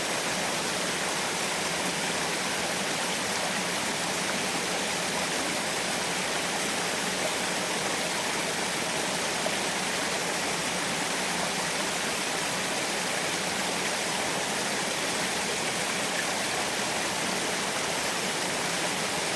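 Small waterfall running steadily: an even, unbroken rush of falling water.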